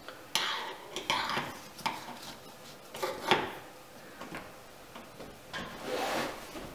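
Flat-blade screwdriver prying and scraping around a stainless chainplate fitting on a fiberglass sailboat deck, working the loose chainplate up to rebed it: a handful of short bursts of metal scraping, with clicks in between.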